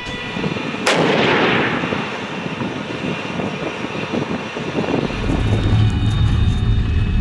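A single loud blast about a second in, typical of an M1 Abrams tank's 120 mm smoothbore main gun firing, with a long rumbling decay. From about five seconds in, the steady low rumble of the tank running.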